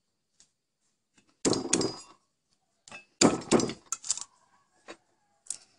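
Clatter of a kitchen knife and loose chillies and garlic cloves being handled on a wooden cutting board: two louder knocks about two seconds apart, then a few light clicks.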